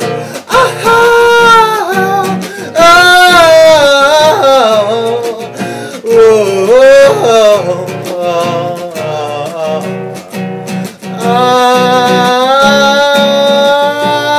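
Male voice singing a wordless melody of long, bending 'ah, ooh, oh' notes over a strummed nylon-string classical guitar.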